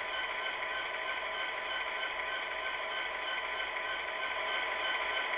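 SoundTraxx Tsunami sound decoder in an HO-scale Athearn Genesis SD70M playing its diesel prime-mover sound through the locomotive's small speaker, running steadily without change, with the decoder's overall volume (CV 128) set to its maximum of 255.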